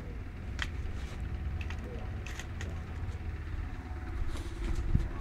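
Electric mosquito racket crackling several times with short sharp zaps over a steady low rumble. There is a single low thump near the end.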